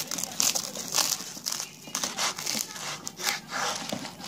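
Knife sawing through the crisp crust of a pressed grilled toast on a wooden cutting board: repeated crackly crunching strokes, about two a second.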